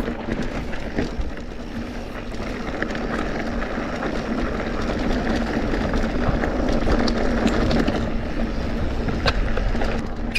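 Mountain bike being ridden over a rocky trail: a steady rush of tyre and wind noise with scattered clicks and rattles from the bike.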